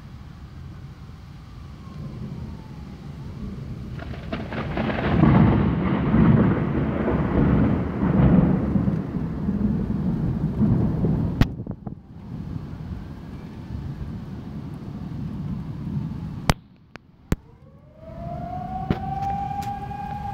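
A long rolling rumble of thunder, loudest from about four to eleven seconds in, over a steady rush of wind and rain, with a few sharp clicks. Near the end a siren winds up in pitch and then holds a steady wailing tone.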